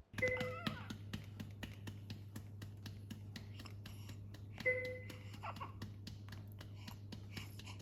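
Rapid light tapping or clicking over a steady low hum. A short high-pitched sound comes near the start and again a little before five seconds in.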